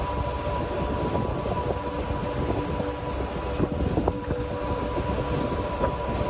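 Steady mechanical drone with a constant hum over a low rumble, with scattered light knocks and clicks.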